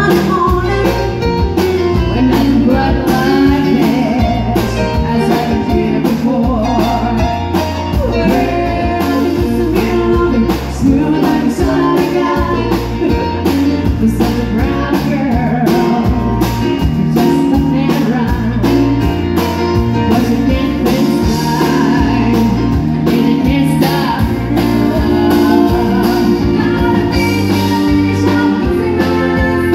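A woman singing a country song live, backed by a band with a steady bass-and-drum beat and a pedal steel guitar.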